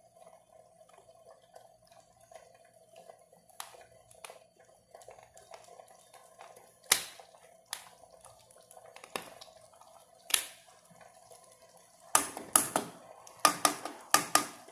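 A handheld metal-faced grater knocked against the rim of a nonstick frying pan to shake off grated cheese: a few single taps, then a quick run of about six knocks near the end. Under it, the soft bubbling and popping of a simmering tomato meat sauce.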